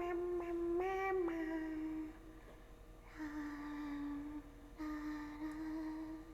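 A young woman's voice making long, steady hums: one held note with a small upward bend about a second in, then, after a short pause, two lower hums of about a second each.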